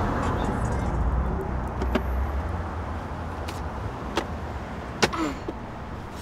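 Low rumble of a passing vehicle, fading away over the first three seconds, with a few sharp clicks inside the car, the loudest about five seconds in.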